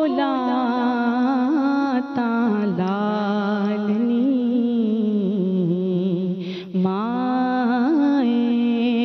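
A woman singing a devotional naat solo, drawing out long held notes with slow melodic turns and a short break for breath about two-thirds of the way through.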